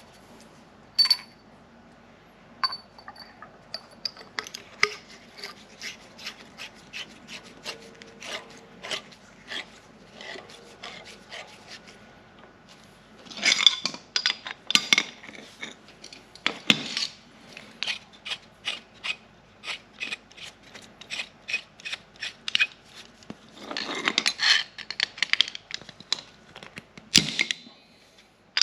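A caravan mains water pressure regulator being reassembled by hand: a run of small clicks and taps as its parts are handled and fitted, with a couple of longer scraping rubs about halfway through and near the end.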